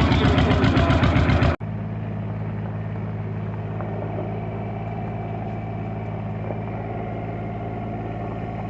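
John Deere G tractor's two-cylinder engine running with a fast, even pulsing beat, cut off suddenly about a second and a half in. A quieter, steady engine idle follows.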